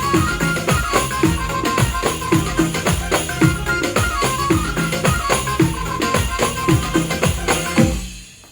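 Arranger keyboard playing a style intro: a melody line over a steady drum rhythm with tambourine, which stops shortly before the end.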